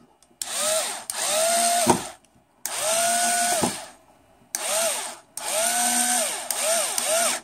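Handheld power screwdriver driving an M3 30 mm screw home in a series of about six short runs. Each run's whine rises as the motor spins up, holds, then falls as it stops. The later runs are shorter, as the screw is tightened.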